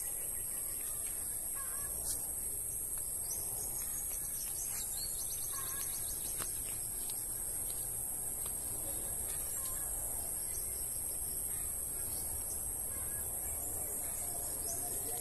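Steady high-pitched drone of an insect chorus, with scattered bird chirps and calls over it.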